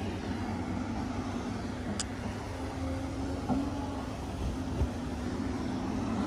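Diesel engine of heavy earthmoving equipment running steadily, with a faint click about two seconds in and a low thump near five seconds.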